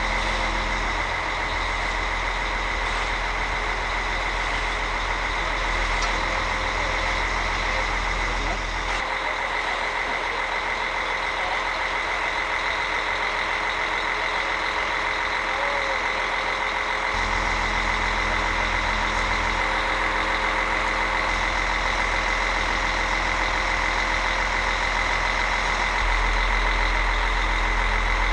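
Truck engine running steadily to power a truck-mounted crane during a lift, with a constant high whine over it. The low rumble drops away about a third of the way in and returns later.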